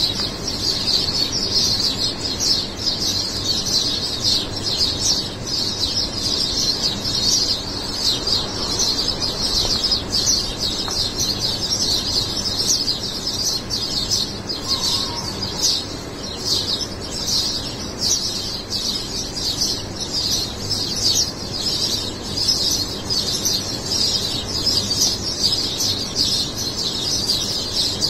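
A dense chorus of many small birds chirping high and fast in the trees, unbroken throughout.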